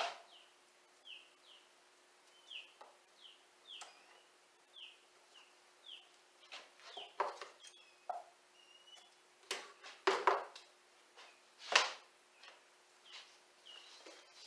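A small bird chirping over and over in short falling notes, about two a second at first, then more sparsely. Sharp crackles of double-sided tape being handled, peeled and pressed on come in between, the loudest in the second half.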